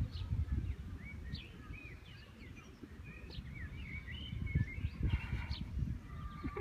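Small birds chirping in quick, repeated short calls, over low thumps and rumble that are loudest around the start and again about four to five seconds in.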